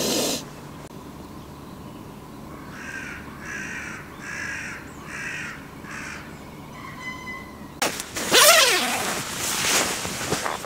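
A crow cawing several times in a row, harsh calls about half a second apart, followed near the end by loud rustling of a sleeping bag being pushed and handled as someone sits up in it.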